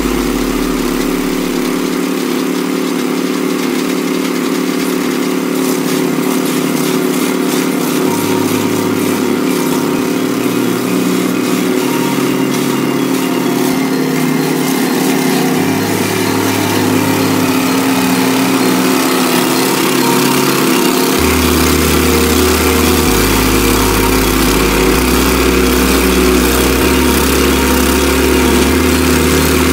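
Engine of a homemade hydraulic digging machine running steadily while its toothed digger cuts into soil. From about eight seconds in, a low bass line from backing music steps underneath.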